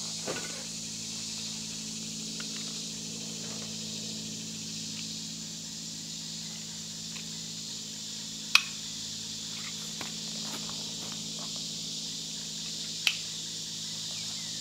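Steady chorus of woodland insects, a continuous high buzzing hiss, over a low steady hum. Two sharp clicks, one a little past halfway and one near the end, are the loudest sounds, with a few faint rustles between.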